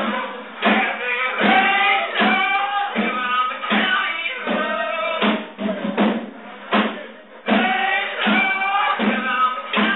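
Live band playing a song: a singer's voice over the band with a steady drum beat, sounding thin through a phone's microphone.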